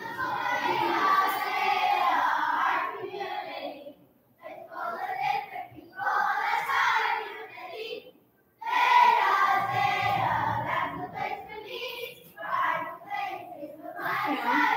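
A group of children singing together, in phrases broken by two short pauses, about four and eight seconds in.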